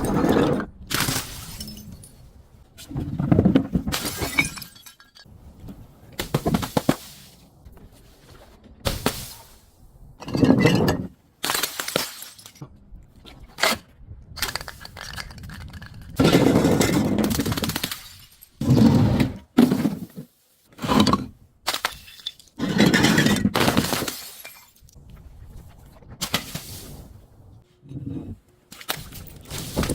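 Glass bottles and other objects being broken and crushed, one after another: a series of about fifteen separate breaking and crunching sounds, some short sharp cracks, others crunches lasting a second or two.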